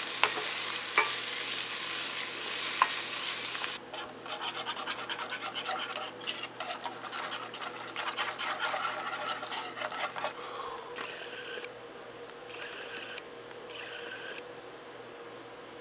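Sausage crumbles sizzling in a frying pan with the odd scrape of a wooden spoon; the sizzle cuts off suddenly about 4 s in. Then comes a run of rapid scraping strokes as gravy is stirred in the pan, and near the end three short bursts of hissing.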